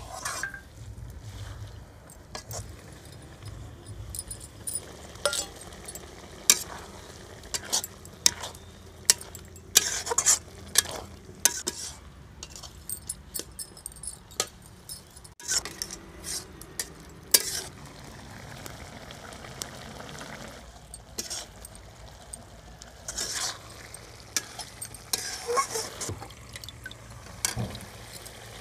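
Metal spatula scraping and clacking irregularly against an aluminium kadai as food is stirred, with frying sizzle underneath.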